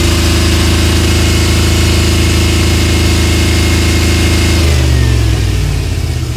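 Chevy Express V8 engine held at raised revs with the cylinder 1 fuel injector unplugged, so it runs with cylinder 1 dead and misfiring. The revs hold steady, then fall back toward idle about five seconds in.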